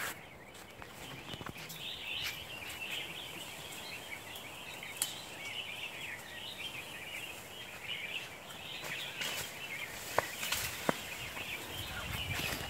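Forest ambience: a continuous high-pitched chatter of birds, with a few sharp snaps like twigs breaking about halfway through and again near the end.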